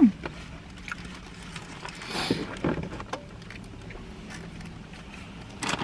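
People eating burgers in a car: soft chewing and small clicks, with a brief rustle of paper wrapping about two seconds in and a short hummed 'mm' soon after, over a steady low hum in the cabin.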